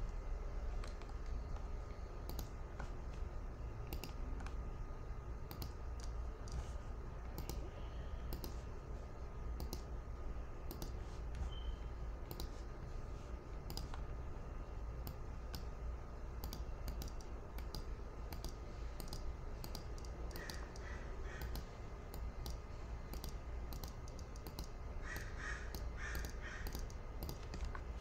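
Computer mouse buttons clicking, many short unevenly spaced clicks, as pattern cells are coloured in one by one, over a low steady hum.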